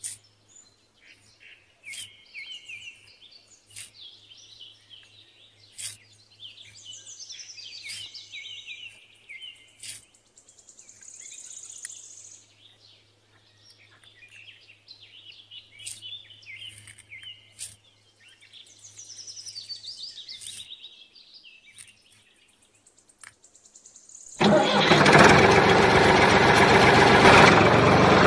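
Birds chirp over a few light clicks and a faint low hum. About 24 seconds in, a loud, steady motor sound starts abruptly as the homemade mini tractor drives off.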